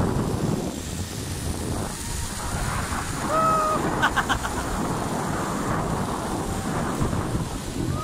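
Wind buffeting the microphone during a fast zipline ride, over the rushing of river rapids below. About three to four seconds in the rider gives a short cry followed by a quick laugh.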